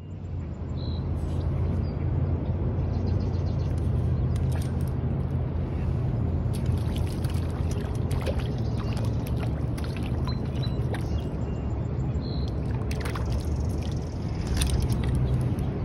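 Steady low outdoor rumble, with scattered faint clicks and two short high chirps, one near the start and one about twelve seconds in.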